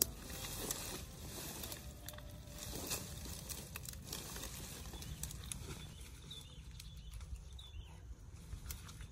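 Dry branches and sticks being gathered and stacked by hand: scattered clacks of wood on wood and rustling of twigs and grass.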